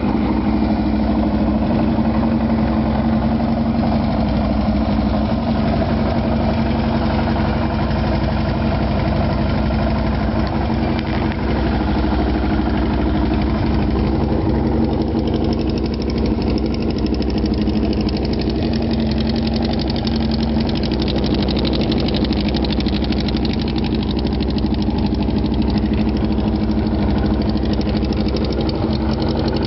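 1977 Kawasaki KZ1000's air-cooled inline-four, fitted with a 1075 big-bore kit, stage 2 cams and racing carburettors, idling steadily.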